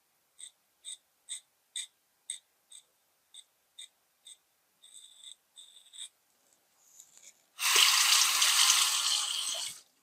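Baili BR179 double-edge safety razor scraping stubble in short, crisp strokes, about two a second, with a couple of longer strokes after. Near the end a water tap runs for about two seconds, louder than the strokes.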